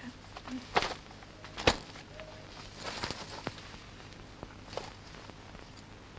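Footsteps on a hard floor, a few separate knocks with the sharpest about a second and a half in, and a soft rustle of clothing around three seconds in as a jacket is taken off.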